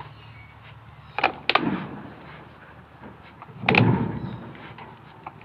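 Sun bear handling a husked coconut against the bars and a wooden block, with three sharp knocks: two close together about a second in and a heavier, lower knock near the four-second mark.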